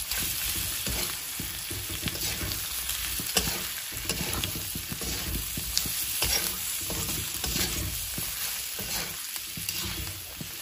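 Steel spatula stirring and scraping pork pieces frying in oil in a steel kadai, with a steady sizzle and frequent short metal-on-metal scrapes and clinks.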